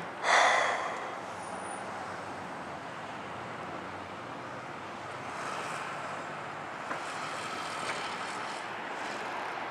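Steady road traffic noise, with a short loud burst of noise just as it begins.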